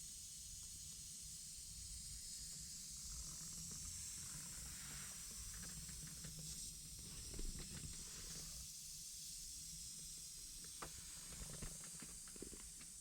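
Steady hiss with a low hum underneath, broken by scattered light clicks and rustles in the middle and near the end.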